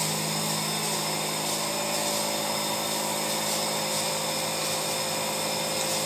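Steady mechanical hum of dairy milking-parlour machinery, an even drone with several steady tones over a hiss that holds unchanged throughout.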